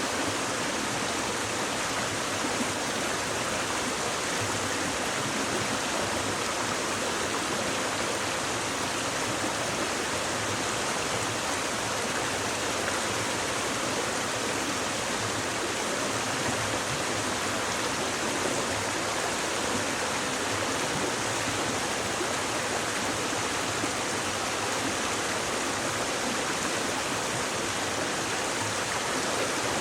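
A shallow stream babbling steadily over rocks, an even rushing of running water with no breaks.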